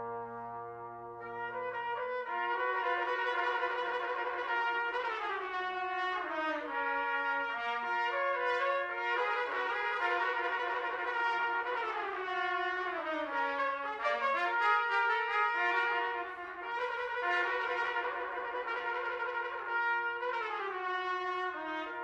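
Brass ensemble of two C trumpets, two B-flat trumpets and two flugelhorns playing sustained chords, with quick falling runs passing through the parts several times.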